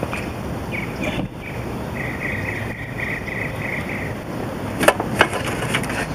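Hand work on the battery cable in the engine bay: sharp clicks and knocks, the two loudest about five seconds in. A rapid, pulsing chirp runs in the background for the first four seconds.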